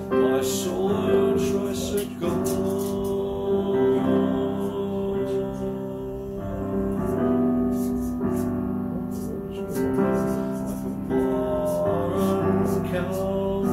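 Background music with held keyboard chords that change every second or two.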